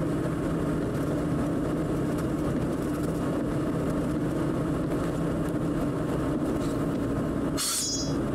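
An old Chevrolet truck's engine running steadily with an even hum. A sudden loud, hissing burst cuts in near the end.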